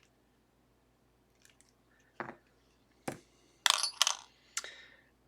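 Small metallic clicks and clinks of a tool working at the brass C-clip on a pin-tumbler lock cylinder's plug, which has to be bent out of the way: two separate clicks, then a quick cluster of clinks past the middle.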